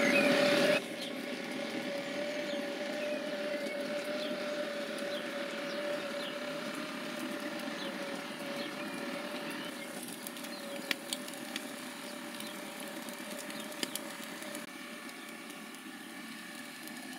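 Steady hiss and hum of a WeGrill's overhead gas infrared burner running at full heat, with a few sharp pops from cuscino steaks searing on the rack beneath it. The hum drops away near the end.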